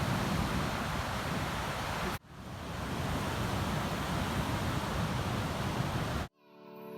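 Ocean surf with wind on the microphone, a steady rushing noise that breaks off for a moment about two seconds in and cuts off abruptly near the end, where soft piano music begins to fade in.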